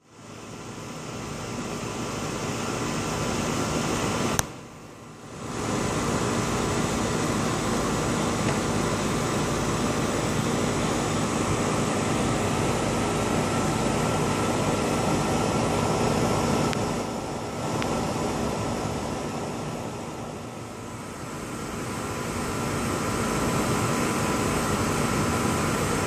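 A steady droning noise with faint steady tones running through it. It cuts off suddenly about four seconds in and comes back a second later.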